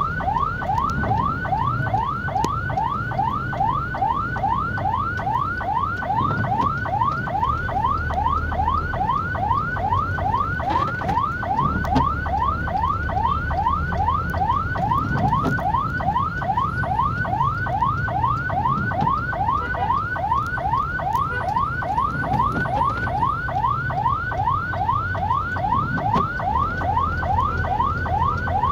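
Ambulance siren in a fast yelp, heard from inside the vehicle's cab: a quick wail that sweeps up in pitch and snaps back, over and over without a break, over the low rumble of engine and traffic.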